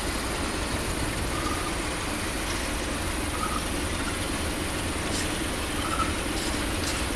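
Diesel engine of an Electroputere LDE 2100 (CFR class 60) diesel-electric locomotive running steadily at an even level.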